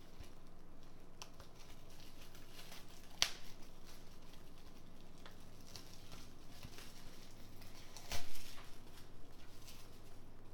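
Plastic shrink wrap crinkling and tearing as it is peeled off a steelbook disc case, in scattered small rustles and clicks. There is a sharp click about three seconds in and a louder knock about eight seconds in, the loudest sound here.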